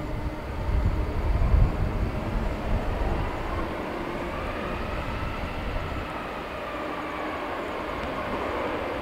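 Boeing 747-400F's four jet engines running at taxi power: a steady whine that slowly rises and falls in pitch over a low rumble, the rumble loudest a second or two in.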